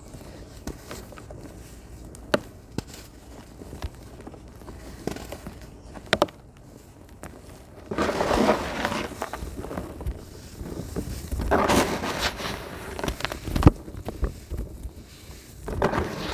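Dry, crunchy sand-clay crumbling and falling into water. Scattered small crackles and ticks come first, then gritty bursts of crumbling and trickling: a long one about eight seconds in, another about twelve seconds in, and a short one at the end.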